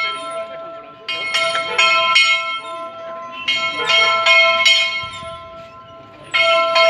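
Church bell being rung in quick clusters of four or five strikes, a new cluster about every two and a half seconds, its tone ringing on between them.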